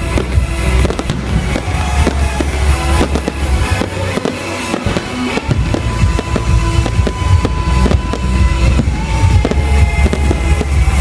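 Aerial firework shells bursting in quick succession, many sharp bangs and crackles over loud music with strong bass.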